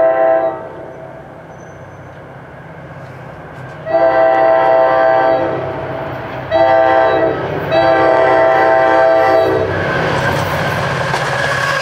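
Approaching NJ Transit passenger train's multi-note air horn sounding the grade-crossing signal: the end of one long blast, then a long, a short and a long blast. Under it a steady low rumble builds into loud train noise near the end as the train closes in.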